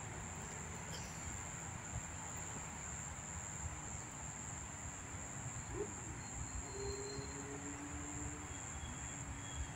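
Steady high-pitched drone of insects, over a low rumble.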